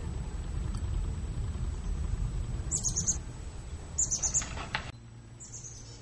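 Small birds chirping: a few short, very high calls about three, four and five and a half seconds in, over a steady low rumble that drops away about five seconds in.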